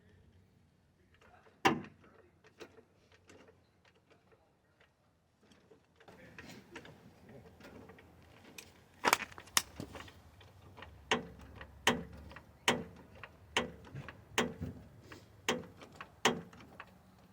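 Scattered clicks and handling noises, one sharp click early on, then a steady run of sharp knocks about one a second from around nine seconds in, each with a short ring.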